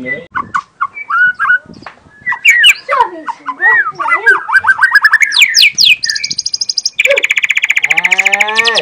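Young white-rumped shama (murai batu) singing loudly, a varied run of short whistles and rising and falling slurred phrases. About a second before the end the song breaks into a fast rattling trill, with falling slurred notes over it.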